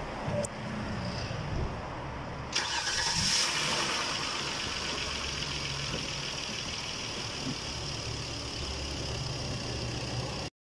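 Kia Cadenza's engine starting about two and a half seconds in, briefly louder as it catches, then idling steadily: its first start after an oil and filter change.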